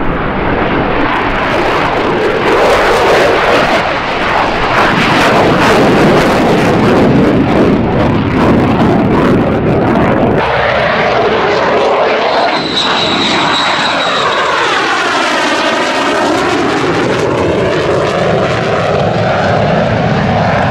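F-35 fighter's jet engine in afterburner on takeoff, loud and crackling. About ten seconds in it cuts to a jet passing by, its tone sweeping down and back up as it goes past.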